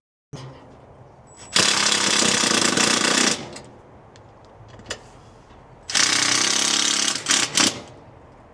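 Cordless impact driver driving fasteners in two bursts of nearly two seconds each, the first about a second and a half in, the second about six seconds in.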